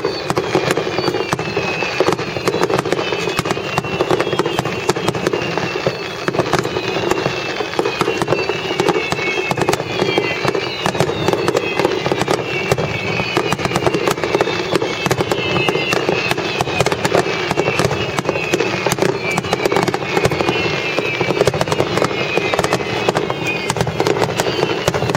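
A dense barrage of fireworks going off in rapid, continuous succession, with many short descending whistles mixed through it: a festival finale of aerial and underwater fireworks.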